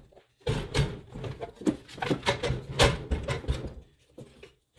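Clunks, knocks and scrapes of a heavy miter saw body being handled, set down and fitted into place: a dense run of sharp knocks with low thumps lasting about three seconds.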